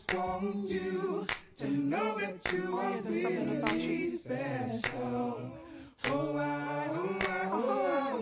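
A cappella vocal music: sung voices without instruments, with sharp snaps now and then.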